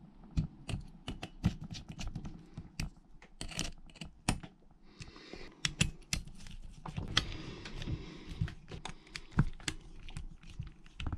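Small hand screwdriver driving tiny screws through a steel plate into a metal track frame of a model skid steer: irregular light clicks and ticks of the bit and metal parts, with a short stretch of scraping about five seconds in.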